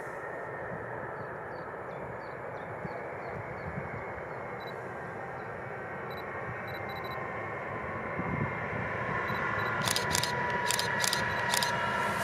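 A train approaching on the line: a steady rushing that grows louder over the last few seconds, with a run of sharp clicks near the end.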